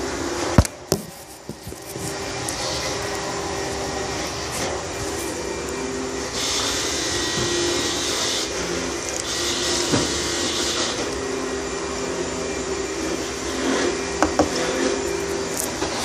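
A steady machine drone with a constant hum, broken by a sharp click about half a second in and two hissing stretches in the middle.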